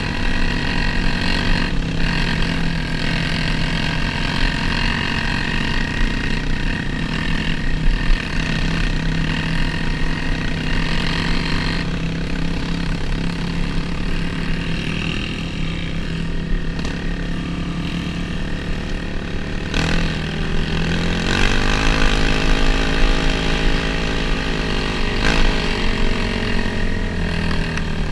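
Trail motorcycle engine running under way on a rough dirt track, its pitch rising as the throttle is opened about twenty seconds in, with a few brief knocks from the bike over bumps.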